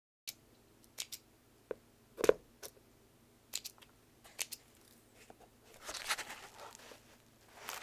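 Faint pencil and paper handling: scattered light taps and clicks, the strongest about two seconds in, and paper rustling about six seconds in.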